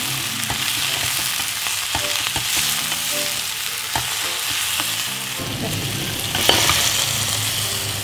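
Choy sum and bean sprouts sizzling as they are stir-fried in a hot oiled wok, tossed with a wooden spatula that knocks lightly against the pan a few times.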